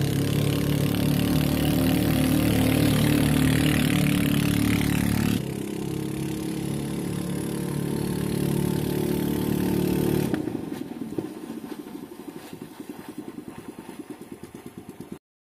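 An engine running steadily. It drops in level about five seconds in, then settles to an even pulsing beat about ten seconds in, and the sound cuts off abruptly near the end.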